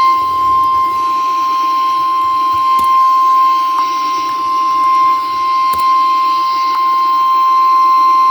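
Emergency Alert System attention signal over FM radio: one long, steady, high-pitched tone that announces an emergency alert, here a severe thunderstorm warning.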